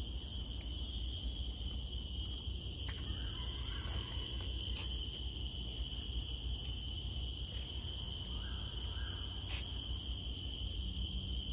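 Steady high-pitched insect chorus of several unbroken tones at once, with two faint short bird calls, one about three seconds in and one near the end, over a low steady rumble.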